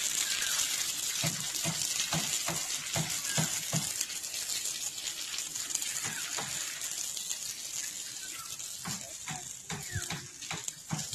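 Water from a garden hose spraying onto pebbles and soil: a steady hiss dotted with many small splashes and clicks.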